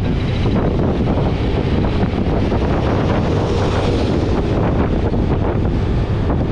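Wind buffeting the microphone: a steady, loud, rumbling noise with no distinct events.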